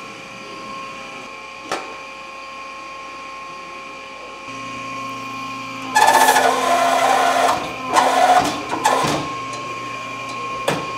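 A homemade six-ton press forming a red-hot carbon steel skillet blank: over a steady hum, a clank near the start, then the press motor starts up with a low hum about four and a half seconds in. About six seconds in comes a loud hissing crackle as the die closes on the hot steel, followed by several sharp pops and crackles.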